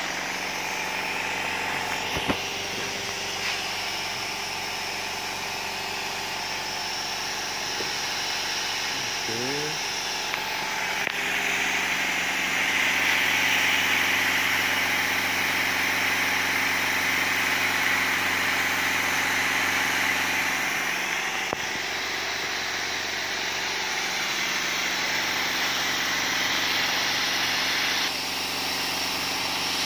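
60-watt CO2 laser cutter cutting plywood: a steady hiss of compressor-fed air blowing through the cutting head, over the hum of the machine's motors. The hiss grows louder about eleven seconds in and eases off near the end.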